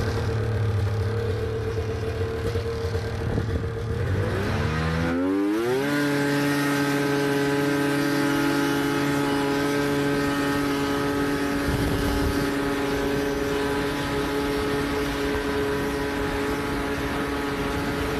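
Polaris Indy snowmobile's two-stroke engine running under way: steady at first, its revs climb about four to six seconds in, then it holds an even, higher pitch at cruising speed.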